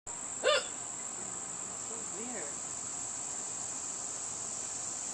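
One sharp hiccup about half a second in, the loudest thing here, over a steady high-pitched insect trill.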